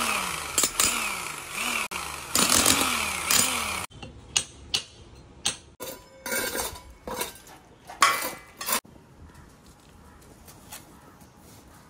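A loud whooshing sound with a falling sweep repeated several times, then a hand tool striking broken concrete and stone on a floor: a dozen or so sharp, irregular knocks. It fades to a faint background near the end.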